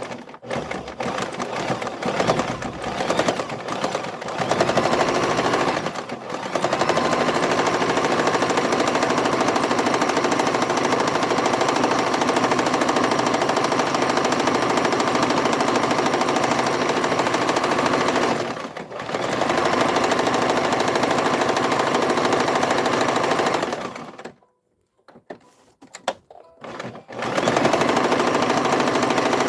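Domestic sewing machine stitching a narrow, dense zigzag (satin stitch, width set to 1). It runs in short stop-start bursts at first, then in long steady runs, stopping briefly twice and pausing for a few seconds near the end before starting again.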